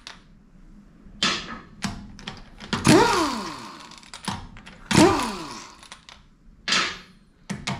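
Impact gun spinning loose wheel nuts off a car's alloy wheel in several short bursts with a hiss, the longer bursts falling in pitch as they die away. The nuts are already cracked loose.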